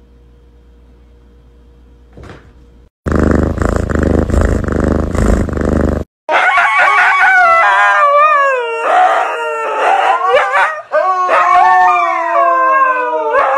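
Several huskies howling together, overlapping voices gliding up and down, starting about six seconds in. Before them comes about three seconds of loud, dense noise that cuts off abruptly.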